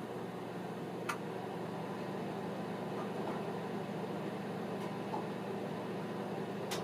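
Microwave oven running with a steady hum, from an oven with a fault that lets it keep operating when its door is opened. Two sharp clicks sound, about a second in and near the end.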